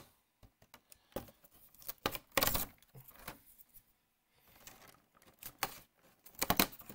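Fingers pushing and prying at the stiff cardboard door of a Pokémon holiday calendar box, with scattered taps and scrapes and a brief tearing rustle about two and a half seconds in.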